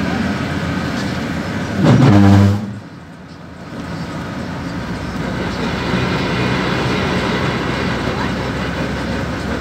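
PAZ-32054 bus under way, heard from inside the cabin: engine running with road and body noise. About two seconds in, a loud pitched sound rises and then holds for under a second. Then the noise drops suddenly and builds back up to a steady level.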